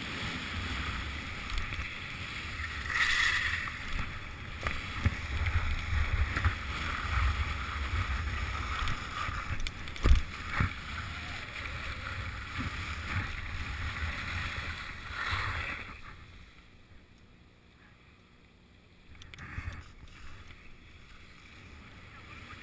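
Skis sliding and carving over groomed snow: a steady hiss of snow under the skis with a low wind rumble on a helmet-mounted GoPro. The noise drops away about sixteen seconds in and picks up faintly again near the end.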